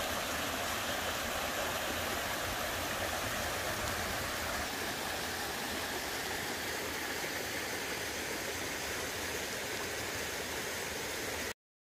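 Mountain stream rushing over rocks and a small cascade: a steady rush of water, a little softer after about five seconds, cutting off suddenly near the end.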